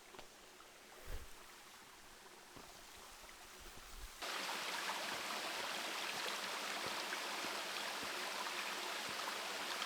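Faint quiet with a soft thump about a second in, then a steady rush of falling water from a mountain waterfall that starts abruptly about four seconds in.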